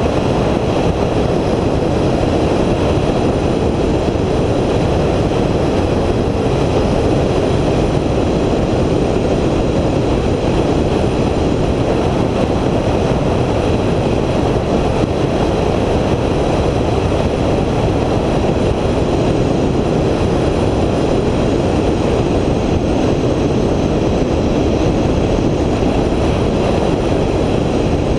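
Steady rumble of a vehicle travelling along a road: constant tyre and wind noise with no distinct engine note and no changes.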